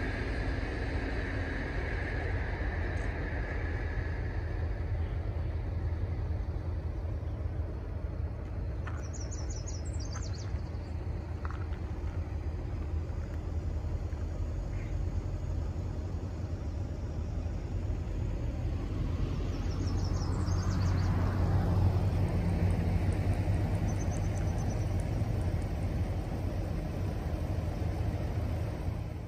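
Steady low rumble of distant road traffic, swelling for a few seconds about twenty seconds in as a vehicle passes. Brief high chirps come twice, about ten and twenty seconds in.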